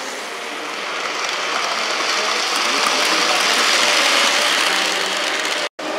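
Model train running past on a layout: the wheels rattle and click over the track as the motor whirs, growing louder through the middle. The sound drops out for a split second near the end.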